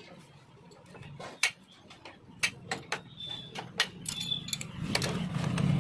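Scattered metallic clicks and clinks of hand tools against a motorcycle's rear shock mount, about a dozen light taps. A low rumble builds near the end.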